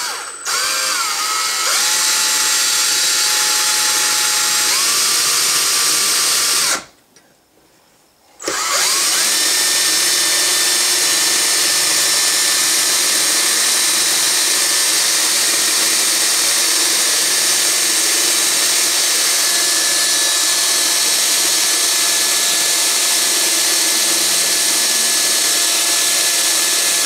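Cordless drill boring out a rivet in a rifle's steel receiver: the motor whines and shifts in pitch over the first few seconds, stops for about a second and a half, then runs at one steady speed, the bit grinding into the rivet head.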